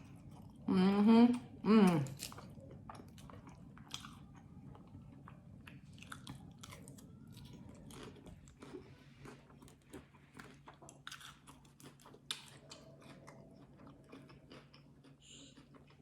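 Close-miked chewing and mouth sounds of someone eating, a run of small wet clicks and crunches. Two short loud voice sounds come about a second in.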